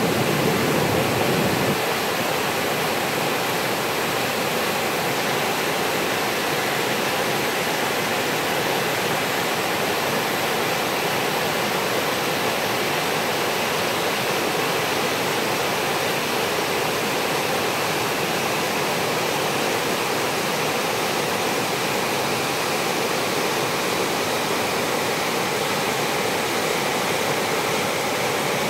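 Steady rushing of flowing water, like a forest stream or waterfall, unchanging throughout. A deeper rumble sits under it for about the first two seconds and then stops abruptly.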